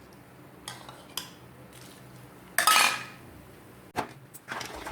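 Metal ladle clinking and scraping against a cooking pan, a few separate knocks with the loudest about two and a half seconds in and a sharp click near the end.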